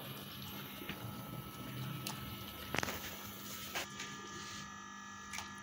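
Metal ladle clinking against a cooking pot and a glass serving dish as noodle soup is ladled out: a few short, sharp knocks, the loudest about three seconds in, over a faint steady hum.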